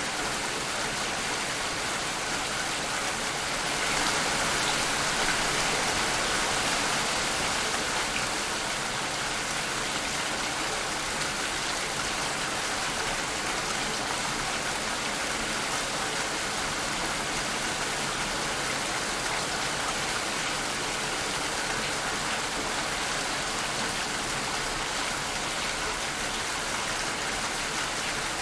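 Steady rain falling as a dense, even hiss, swelling a little louder a few seconds in and then settling back.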